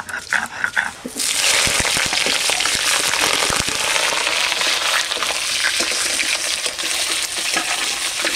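A few short knocks, then about a second in, hot mustard oil in a kadai breaks into a loud sizzle as food goes in, and it keeps frying steadily.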